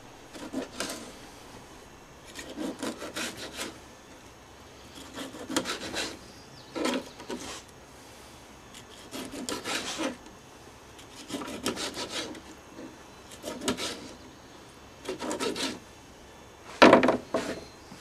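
Fillet knife sawing through whole herring, bones and all, on a plastic cutting board: short bouts of crackly scraping every second or two, one for each cut. A louder knock comes near the end.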